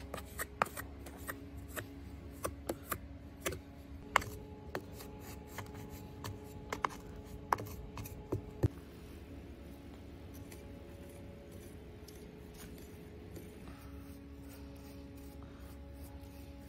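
Irregular sharp clicks and taps of a small steel trowel striking the plastic mask pattern and the edges of the sand-filled wooden flask as moulding sand is packed around the pattern. They go on for about the first nine seconds, then stop.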